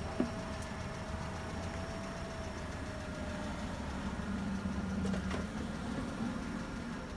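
A car engine running at low speed as a car pulls into a parking space and idles, with another car passing on the road about halfway through. A sharp click just at the start, and another knock a little after five seconds.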